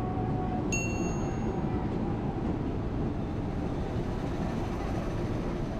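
Electric commuter train (KRL Commuter Line EMU) rolling along the platform, a steady low rumble. About a second in, a short high metallic ring sounds and fades.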